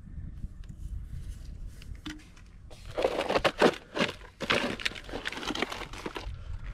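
Crinkling and rustling of plastic wrap as a cardboard tray of shrink-wrapped firework canister shells is picked up and handled, loudest from about three to six seconds in, over a low steady rumble.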